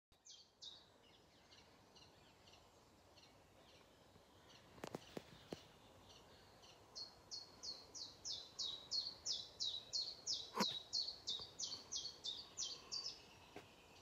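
A wild songbird singing in the morning: a fast series of repeated high notes, each sliding downward, faint at first and then loud from about seven seconds in at about three notes a second. A few sharp clicks come near five seconds and one just after ten seconds.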